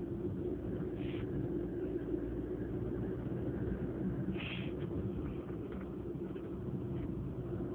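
Two brief stifled sneezes, held back so only a short puff of air escapes, about a second in and again about four and a half seconds in, over a steady low rumble.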